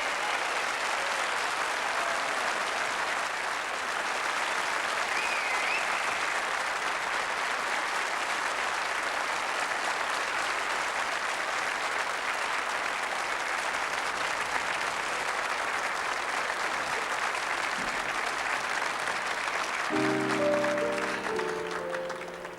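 Audience applauding steadily, with a couple of short whistles in the first few seconds. Near the end the applause dies away and an instrument sounds a held chord.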